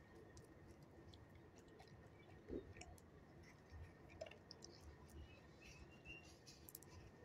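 Near silence: faint outdoor background with scattered small clicks and a few faint, short chirps.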